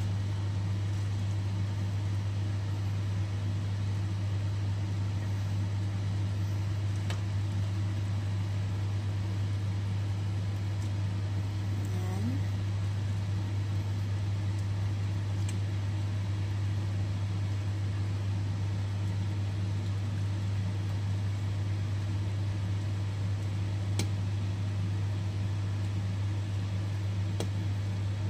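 Steady low mechanical hum, with a few faint clicks of a metal ladle against the cooking pot.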